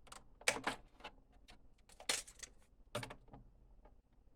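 Handling noise of tools on a work surface: a scatter of short clicks and light knocks, the strongest about half a second, two seconds and three seconds in, as impact sockets and a tape measure are picked up and set down.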